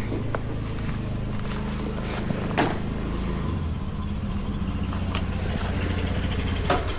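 Vehicle engine running steadily with a low hum that shifts in pitch about halfway through, and a couple of sharp clicks.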